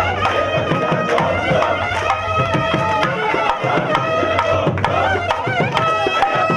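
Instrumental passage of South Indian devotional bhajan music: a melody instrument plays held, steady notes with a few wavering ones, over steady hand-drum strokes.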